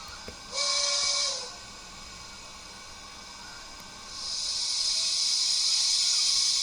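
Digital steam-locomotive sounds from an ESU 5.0 sound decoder in a Bachmann model of a Chinese steam locomotive. A short steam-whistle toot with a burst of steam comes about half a second in. After a quieter spell, a loud steam hiss starts about four seconds in and keeps going.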